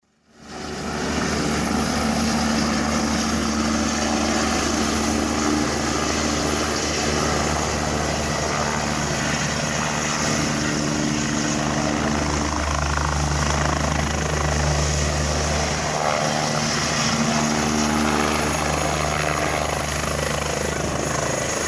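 Eurocopter EC145 twin-turbine police helicopter hovering low as it comes in to land: steady rotor and turbine noise, fading in over the first second.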